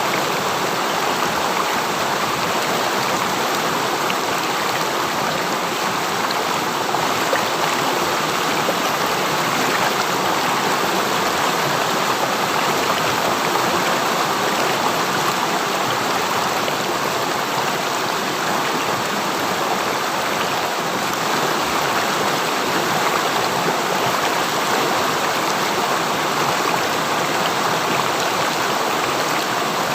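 River water running and splashing over rocks in a steady rushing flow.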